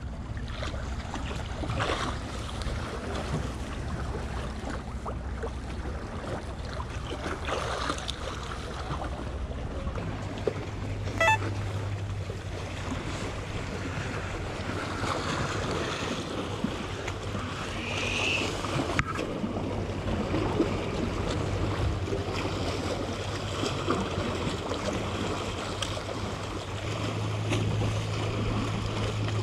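Choppy sea waves lapping and splashing against concrete tetrapods, with a headwind buffeting the microphone as a low rumble. There is one short sharp click about eleven seconds in.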